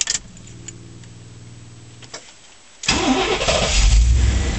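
A steady hum for about two seconds and a click, then, nearly three seconds in, the 1989 Chevrolet pickup's 350 cubic inch (5.7 L) small-block V8 cranks, catches quickly and keeps running with a deep rumble.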